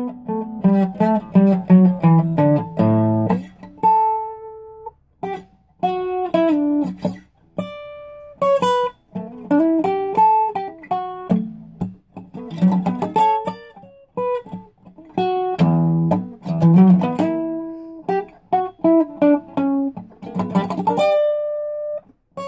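Solo acoustic guitar playing an instrumental jam: strummed chords at first, then picked single-note lines and chords in phrases broken by short pauses, with a few notes left ringing.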